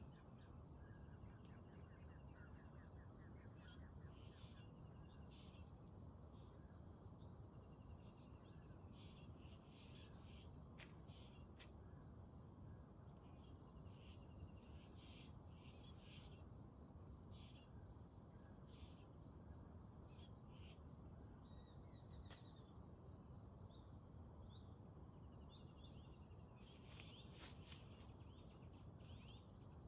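Faint insects trilling in a steady high buzz, with short high chirps now and then over a low background rumble.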